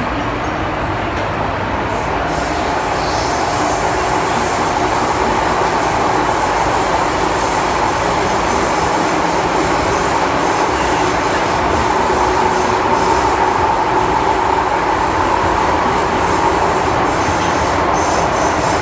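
Hong Kong MTR M-Train running, heard from inside the passenger car: a steady rumble of wheels on rail, with a steady high tone that grows stronger through the middle.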